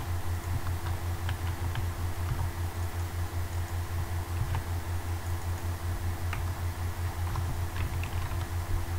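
Computer keyboard keystrokes, a few scattered clicks at a time, as text is typed into table cells, over a steady low hum.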